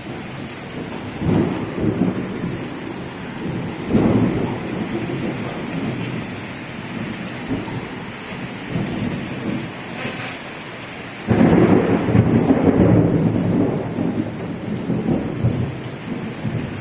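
Steady rain hissing through a thunderstorm, with rolling thunder. Rumbles swell about a second in and again a few seconds later, and the loudest peal breaks suddenly past the middle and rolls on for a couple of seconds.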